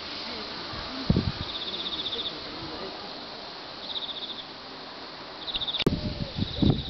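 Insects chirping in short trains of rapid high pulses, several times over, against a steady outdoor background hiss. Low thumps on the microphone about a second in and again near the end, after a sharp click where the sound cuts.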